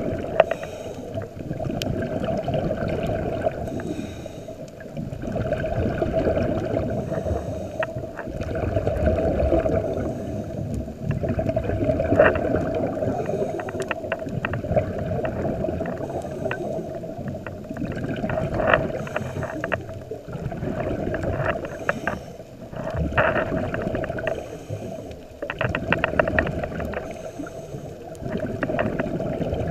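Scuba diver breathing through a regulator, recorded underwater: the bubbling and crackle of exhaled air swell and fade every few seconds, one swell per breath.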